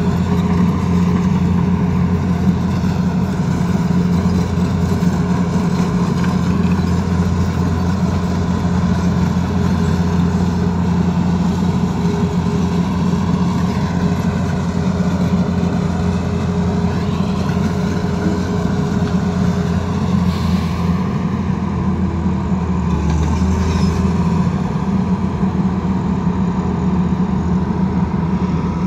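Tata Hitachi crawler excavator's diesel engine running steadily while the machine travels on its tracks, a continuous low drone.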